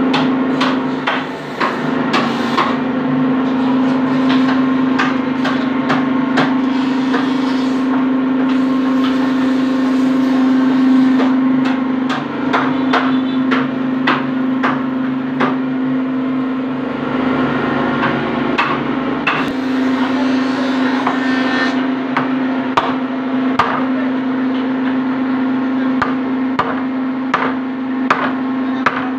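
Hammer blows on wood, many irregular knocks, over a steady low hum.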